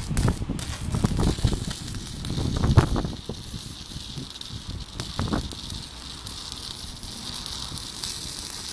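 Stick-welding arc burning a thick 6.4 mm electrode: a steady crackling hiss with heavy irregular sputtering pops in the first three seconds and again around five seconds in. The hiss stops suddenly near the end as the arc is broken.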